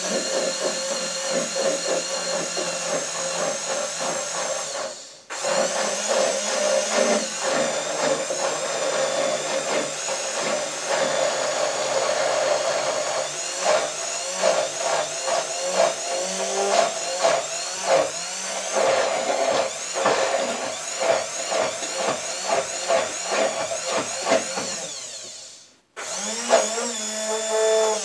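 Hand-held immersion blender running in a tall cup, emulsifying homemade mayonnaise while oil is poured in. The motor whines at a wavering pitch and stops briefly twice, about five seconds in and near the end. From about halfway a rapid ticking joins it.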